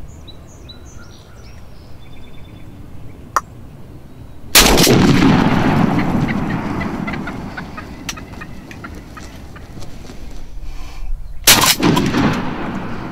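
A shotgun blast at a wild turkey gobbler about a third of the way in, echoing away over several seconds while the hit bird flops its wings on the ground. A few short turkey calls come just before the shot. A second identical blast near the end is the same shot played again.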